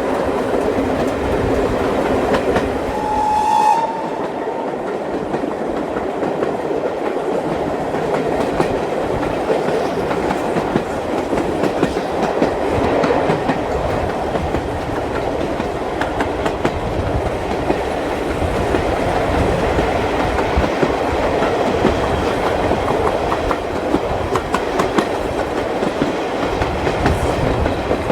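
Steam-hauled heritage train running along the line, its wheels clacking over the rail joints. A brief high tone sounds about three seconds in.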